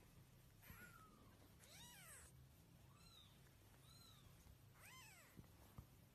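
A cat meowing faintly: five short meows about a second apart, each rising then falling in pitch.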